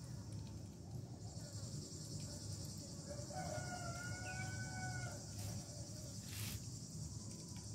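Insects shrilling steadily in a high chorus, and a rooster crowing once, one drawn-out call of about two seconds midway. Two short hissing noises follow near the end.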